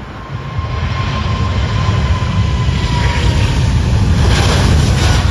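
Twin-engine wide-body cargo jet's engines at takeoff power on the takeoff roll: a deep rumbling roar that builds over the first second and stays loud, with a thin whine that dips slightly in pitch. A hiss swells near the end as the jet rotates and passes.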